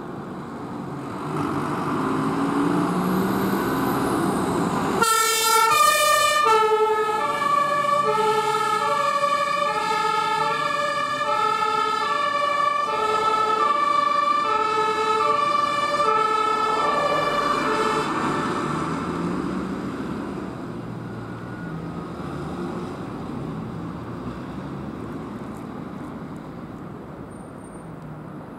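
An emergency vehicle passing under a German two-tone siren (Martinshorn), the horn switching back and forth between a high and a low tone. The vehicle is heard coming closer first. The siren starts suddenly about five seconds in, sounds for about thirteen seconds, then ends, and the vehicle fades away.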